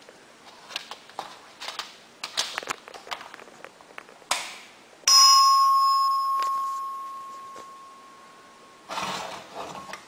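Simplex 2902-9240 electric bell-chime giving a single stroke about five seconds in. The gong rings one clear tone with higher overtones and dies away slowly over about four seconds. Scattered clicks come before it, and a brief rustle comes near the end.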